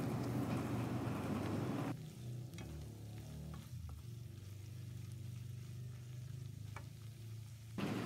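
Cabbage and mustard greens sizzling as they are stir-fried in a wok with a spatula. The sizzle cuts off abruptly about two seconds in, leaving a low hum and a few light clicks, and comes back just before the end.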